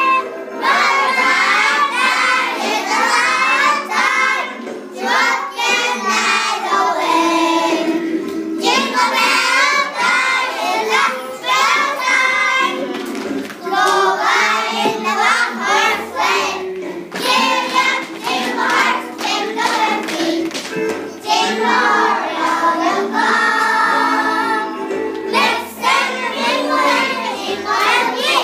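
A group of young children singing a song together, clapping their hands along in places.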